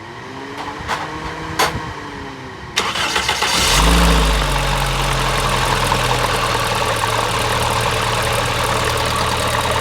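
Toyota GLi's four-cylinder engine cranked on the starter with its tappet cover off; it catches about three and a half seconds in and then runs steadily. The engine is being run to find a tappet noise.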